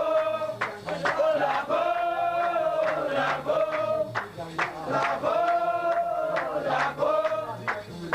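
Gnawa music: a male chorus chanting a short phrase over and over, roughly every three to four seconds, over steady sharp metallic clacking of qraqeb castanets and low plucked guembri notes.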